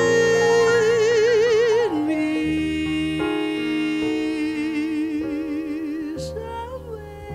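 Music: a singer holds long notes with a wide vibrato over an instrumental accompaniment, dropping to a lower held note about two seconds in.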